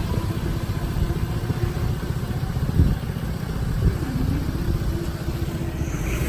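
Road vehicle engines rumbling at a railway level crossing, with a low running tone that dips briefly in pitch and two short sharp knocks a second apart.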